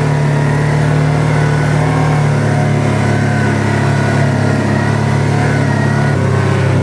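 Kawasaki Teryx 800 side-by-side on snow tracks, its V-twin engine running with a steady drone under way. The engine note shifts slightly a couple of times.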